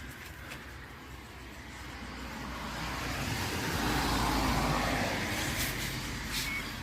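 A car passing by, building up gradually, loudest about four seconds in, then fading away.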